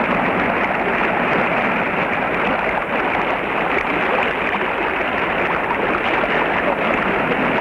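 River rapids rushing: a steady, dense wash of white water with no let-up.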